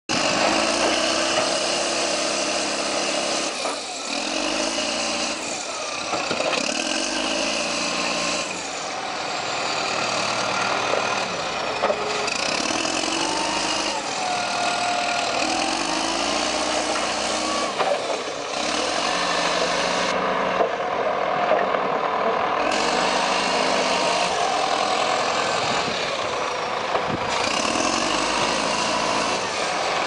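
Case 780B backhoe loader's diesel engine revving up and down again and again as the machine drives and works its front loader bucket, with a few sharp clanks.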